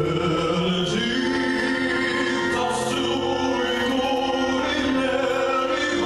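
A male solo singer performing a slow classical song, holding long notes over a sustained accompaniment.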